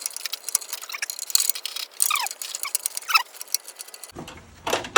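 Rapid, irregular metallic clicking with several short squeaks falling in pitch, as a stubborn oxygen sensor is worked loose from the exhaust with a wrench and O2 sensor socket.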